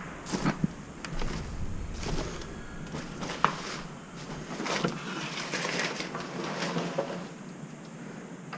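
Irregular clicks, knocks and scraping rustles of things being moved or stepped on, with one sharp click about three and a half seconds in and a longer stretch of scraping a little after.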